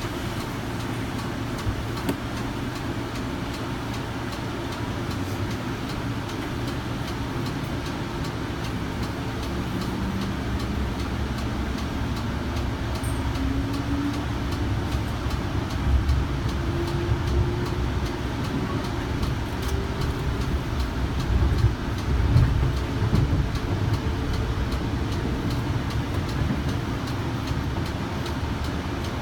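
Inside a Kinki Sharyo light rail vehicle pulling away and accelerating: the Alstom ONIX IGBT VVVF traction drive and AC motors give a faint whine that climbs slowly in pitch, over the steady rumble of wheels on rail. A few louder low knocks come past the middle.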